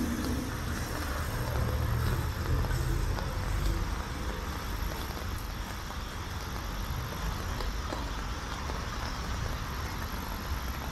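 Engine of a small lake passenger boat (a Geneva mouette) running as it pulls away across the water. Its low rumble is stronger at first and eases a little after about four seconds.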